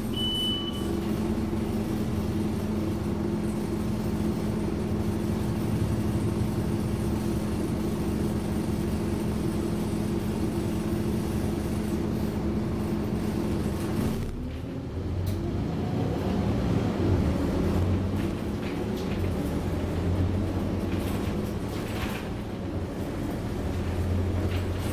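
A Scania OmniCity double-decker bus's five-cylinder diesel engine, heard from inside the lower deck. It idles steadily, with a short high beep right at the start. About halfway through, the engine note changes and then rises in pitch as the bus pulls away and accelerates.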